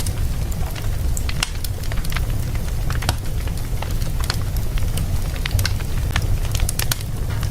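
Wood fire burning in a fireplace, with a steady low rumble of flame and irregular sharp crackles and pops, several a second.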